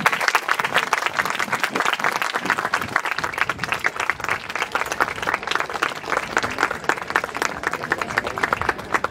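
Audience applauding: many people clapping at once, loud and continuous, fading right at the end.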